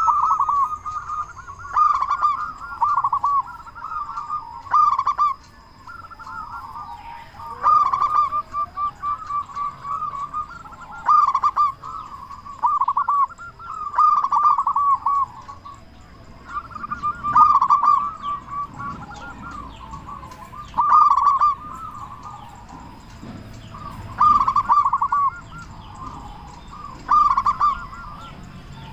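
Zebra doves (perkutut) cooing, phrase after phrase of rolling, rapidly pulsing coos, each one to three seconds long and a few seconds apart.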